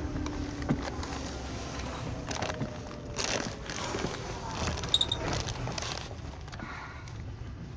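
Seibu 2000 series electric train running, heard from inside the carriage: a steady low rumble of wheels on rail with scattered clattering knocks. The motor whine dies away in the first second. Two short high beeps sound about five seconds in, and the running noise eases off near the end.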